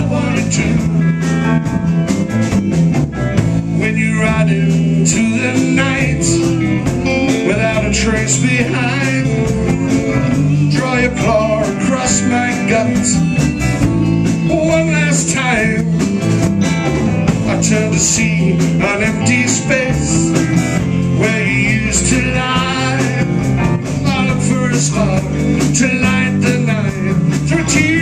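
A live blues band playing: electric guitars, electric bass and drums, with sung vocals over them.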